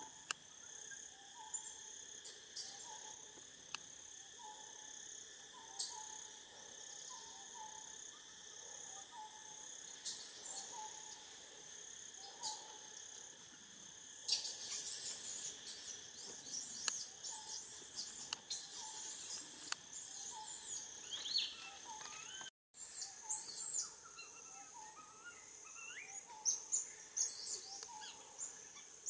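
Steady high insect drone with a soft chirp repeating about every half second. From about halfway, a baby macaque's high-pitched squealing calls come in over it, bending up and down.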